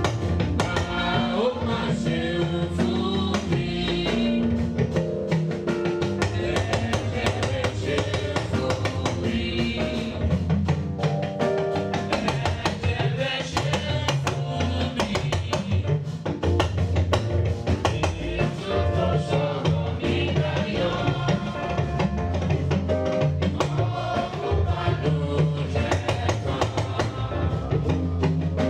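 Church congregation singing a hymn to a steady beat on drums and percussion.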